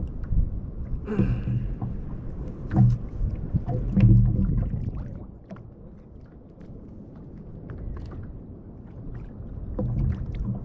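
Sea water lapping and slapping against a plastic kayak hull in uneven surges, easing off midway and building again near the end, with scattered small clicks.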